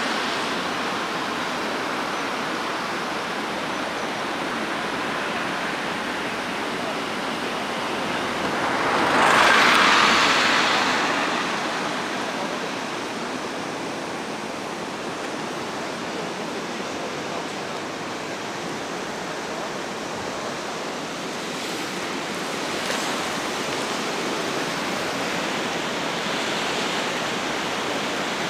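River in flood, fast muddy water rushing steadily below a bridge, with one louder whoosh about nine seconds in.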